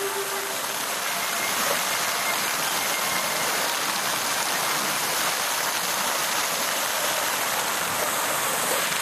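Water jets of a public fountain spraying up and splashing back into the basin: a steady, even hiss of falling water.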